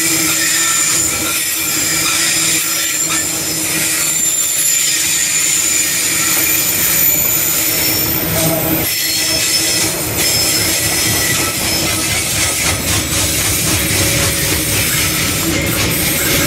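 Loaded bauxite hopper wagons rolling past, steel wheels on rail, with thin, steady, high-pitched wheel squeal over the rumble.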